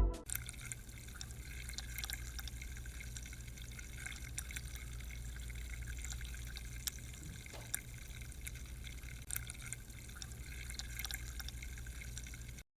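Faint water dripping: scattered, irregular drips over a low steady hum.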